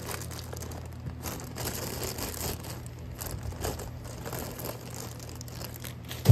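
Clear plastic bag crinkling and rustling as it is handled and pulled off a toy, with one sharp knock right at the end.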